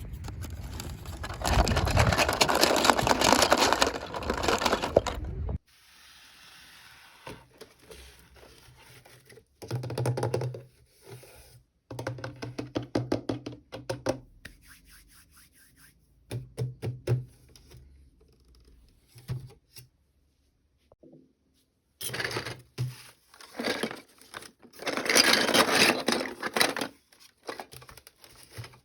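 Toy packaging being handled and opened by hand. A long noisy stretch of rustling comes at the start and another near the end, with scattered small knocks and scrapes between them.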